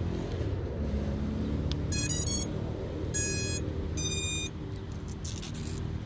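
FPV quadcopter powering up on its battery: its ESCs play their startup tones through the Emax 2306 motors. A quick three-note tune about two seconds in is followed by two longer beeps, the sign that the ESCs have initialised and picked up the flight controller's signal. A steady low rumble runs underneath.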